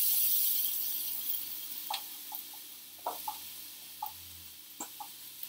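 Frozen chopped shallots and green peppers hitting a hot oiled frying pan: a sizzle that is loudest at first and dies down steadily, with a handful of light metal clinks against the pan from about two seconds in.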